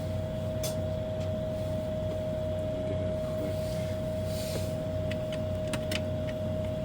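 A steady background hum with a constant whine throughout. A short hiss about four and a half seconds in fits a quick spray of isopropyl alcohol onto the soldered board to clean off flux. A few light clicks follow near the end.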